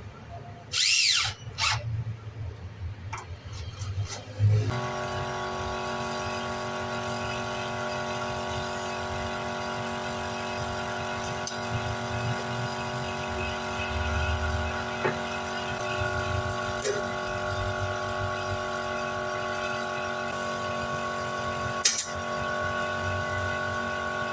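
A power tool's motor starts running steadily about four seconds in, holding an even hum, after a few short sharp noises at the start; now and then a sharp click sounds over it.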